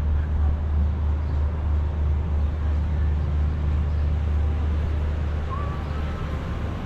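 Steady low rumble of outdoor riverfront ambience, with a faint short chirp about five and a half seconds in.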